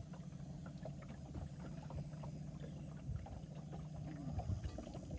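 Bass boat's bow-mounted electric trolling motor running with a steady low hum, with faint scattered ticks over it.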